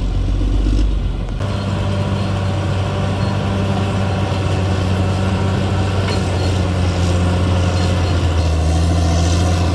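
Diesel engine of a CAT D6R XL bulldozer running steadily, its low note changing abruptly about a second and a half in.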